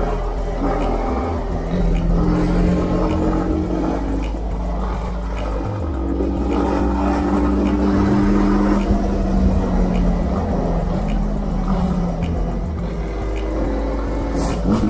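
Honda CB300R's single-cylinder engine running at a steady cruise, its note shifting a little as the throttle changes, over a constant low wind rumble on the rider's microphone.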